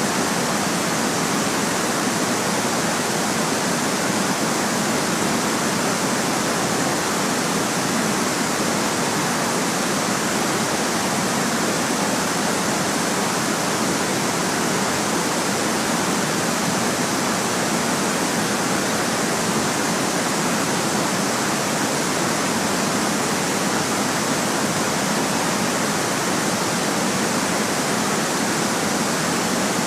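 Steady white noise: an even, unchanging hiss that never varies, with little deep bass.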